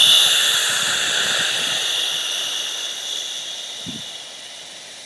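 A long, steady "shhh" breathed out by a person, the qigong healing sound for the liver, fading away about four seconds in.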